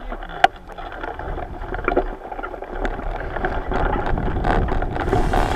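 Bicycle under way: wind buffeting the microphone with rattles and clicks, growing louder, and a sharp click about half a second in.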